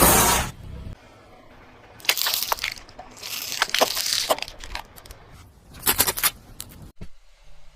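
Crunchy objects cracking and crunching under a car tyre in several bursts of crackling, with quieter gaps between them.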